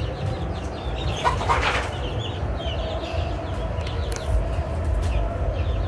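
Birds chirping: many short high chirps at irregular intervals, over a steady low rumble, with a brief rustle-like noise about a second and a half in.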